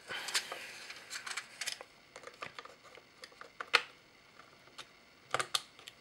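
Small clicks and taps of a DDR4 laptop memory stick being slid into its slot and pressed down, with a rustling scrape in the first second or so and one sharp click about four seconds in.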